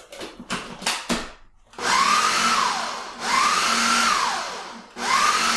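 Ninja blender motor run in three short pulses, creaming cream cheese, ricotta and sugar; in each pulse the whine rises as the motor spins up, then falls as it winds down. A few clicks and knocks come before the first pulse.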